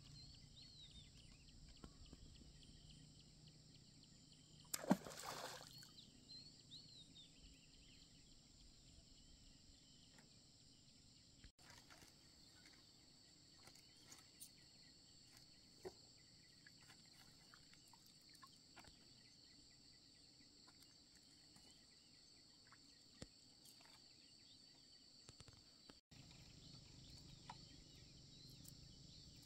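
Quiet outdoor ambience on a lake: faint bird and insect chirping over a low hiss, with one short splash about five seconds in and scattered small clicks from handling a fishing net in a wooden boat.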